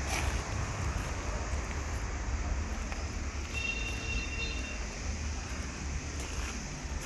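Steady low rumble of background noise, with a few faint ticks and a brief thin high tone about halfway through.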